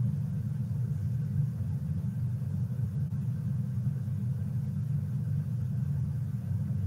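A steady low rumble of background noise, even and unbroken throughout, with no speech.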